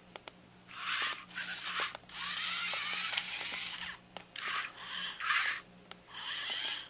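Small DC gear motors in Tamiya geared motor boxes whirring as the robots drive, starting and stopping in about four bursts of one to two seconds each, with a few faint clicks between them.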